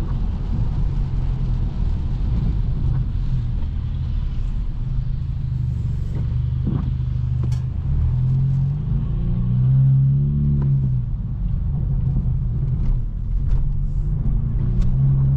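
Straight-piped exhaust of a tuned BMW F30 328i's turbocharged four-cylinder, droning steadily while cruising. The note rises and falls once around the middle as the car briefly accelerates and eases off, with a few short clicks.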